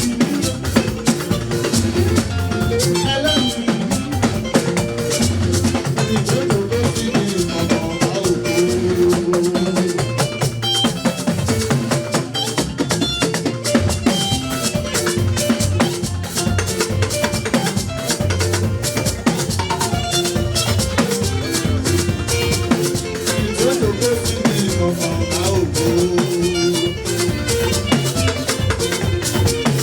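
Hymn music with drums and shaken rattles keeping a steady, busy beat under a melody.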